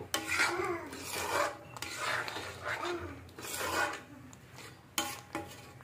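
Steel spoon scraping around a metal kadhai while stirring thick masala gravy: a rasping scrape in repeated strokes, about one a second.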